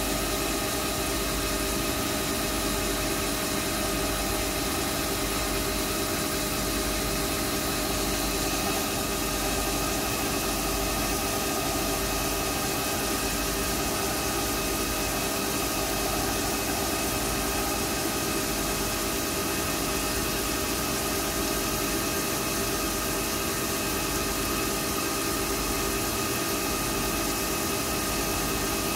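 Metal lathe running while turning a steel bolt under a flood of coolant: a steady machine hum with several constant tones over an even hiss, unchanging throughout.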